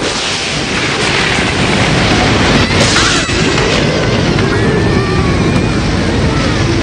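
Loud, steady storm noise of wind and heavy rain, with children crying and sobbing over it.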